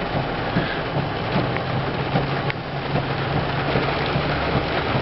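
Steady rain falling, an even hiss of drops, with a low steady hum underneath.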